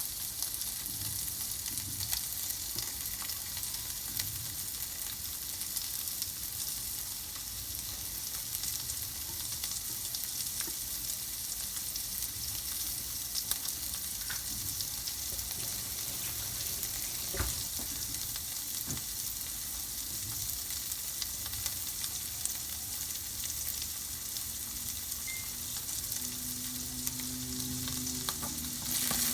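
Food sizzling steadily in a hot frying pan while being stirred, with scattered taps of the utensil against the pan and one sharper knock about halfway through.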